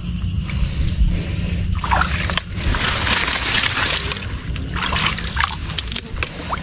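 Shallow creek water sloshing and trickling, with a longer burst of splashing about three seconds in.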